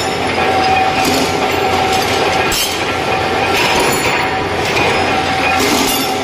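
Steel-rod cutting machine running with a steady whine, the steel rod rattling and scraping as it feeds through, and a few sharper metal strikes, one about two and a half seconds in and another near the end.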